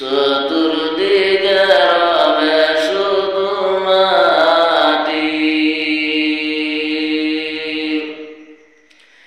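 A man singing a Bengali gojol (Islamic devotional song) solo, without instruments, in a winding melodic line. About five seconds in he holds one long note for some three seconds, then breaks off near the end for a breath.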